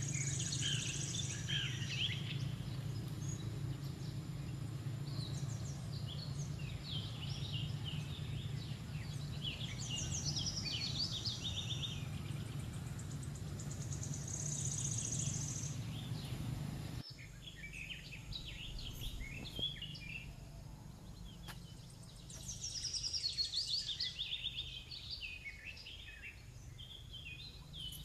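Outdoor woodland ambience: many short, high chirps and calls of birds and insects, with a few brief high buzzing bursts, over a steady low rumble that drops away about two-thirds of the way through.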